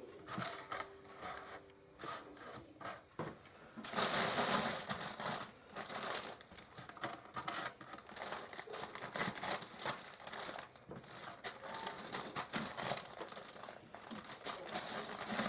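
Plastic shake-and-bake bag crinkling and rustling as breaded potato wedges are tipped out and laid on a baking tray, with small knocks of the wedges landing; the loudest rustle comes about four seconds in.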